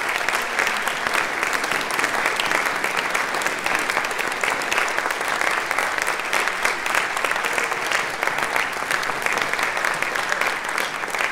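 Concert audience applauding, a dense, steady clapping that keeps up throughout.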